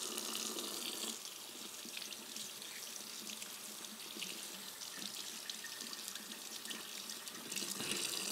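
Kitchen faucet running into a small stainless bar sink as raw chicken pieces are rinsed under the stream. The sound of the water changes about a second in and again near the end.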